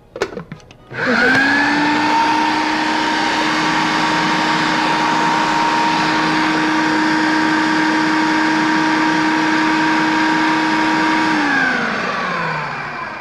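Electric food processor puréeing roasted butternut squash soup: the motor spins up about a second in, runs at a steady whine for about ten seconds, then winds down with falling pitch near the end. A couple of short knocks come just before it starts.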